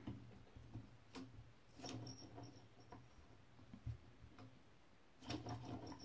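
Faint metallic clicks and ticks from the carriage mechanism of a 1920s Oliver No.11 typewriter as the carriage is moved by hand. They come in two short clusters, about two seconds in and near the end, with a few single clicks between.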